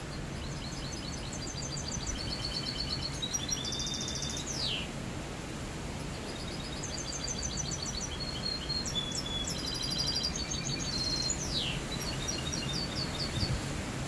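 A caged mixto, a hybrid finch bred from a wild finch and a canary, singing in two long phrases of quick high trills and twittering notes, each ending in a sharp downward-swooping note. A steady low background noise runs underneath.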